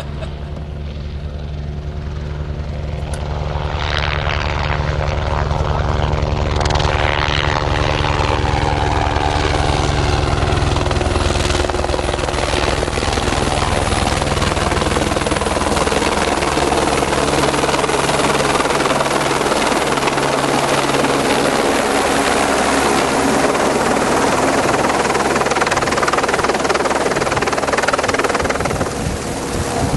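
Helicopter flying close, growing louder over the first few seconds and then staying loud and steady, with a brief dip near the end.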